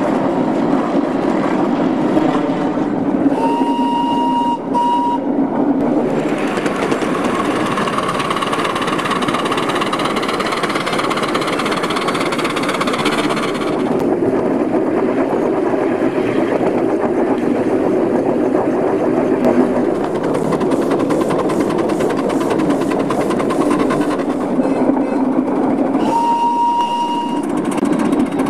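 Miniature F 444 steam locomotive running along its track, with two short steady whistle blasts, one a few seconds in and one near the end. A hiss of steam runs from about six seconds in to about fourteen.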